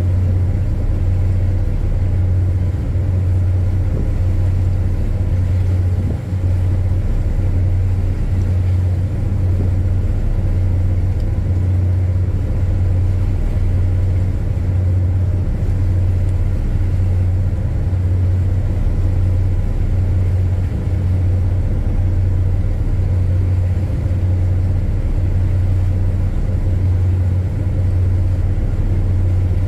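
Ship's engine running, a steady low drone with no change in speed.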